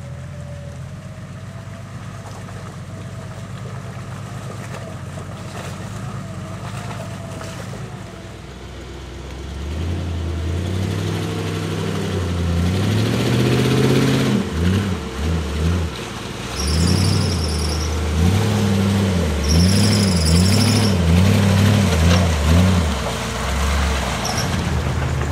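Off-road 4x4's engine idling low, then from about ten seconds in revving up and down in repeated surges.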